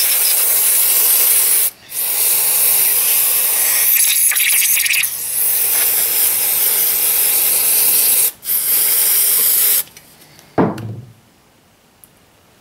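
Aerosol can of brake parts cleaner spraying in a long, loud hiss, broken off briefly twice, stopping about ten seconds in. A single thump follows.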